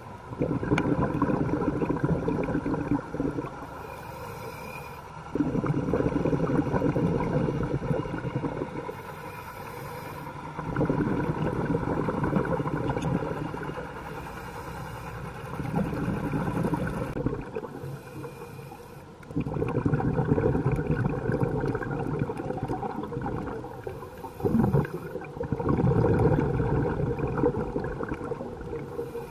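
A scuba diver breathing through a regulator underwater. A short hiss marks each inhale, followed by a few seconds of loud bubbling from the exhaust bubbles, about six breaths in all.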